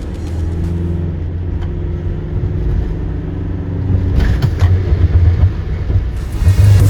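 Ambulance driving at speed on a test track: steady low engine and road rumble that grows louder and more uneven about halfway through, with a few heavy low thumps near the end.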